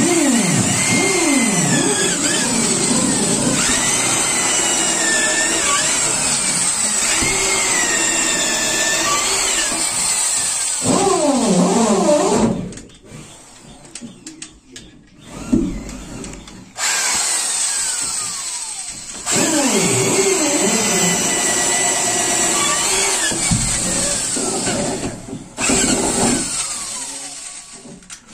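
Corded electric drill with a long auger bit boring into hardwood boat timbers, the motor's pitch sagging and recovering as the bit bites. It winds down a little under halfway through, gives one short burst during the pause, then runs again for several seconds before tapering off near the end.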